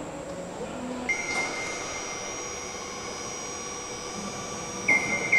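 Overhead crane hoist lifting a large fuselage section, its electric drive giving a steady high whine made of several tones over a machinery hum, with a couple of sharp knocks near the end.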